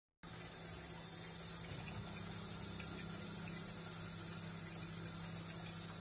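Tap water running onto cooked macaroni in a stainless steel colander in a kitchen sink: a steady splashing hiss that starts just after a moment of silence.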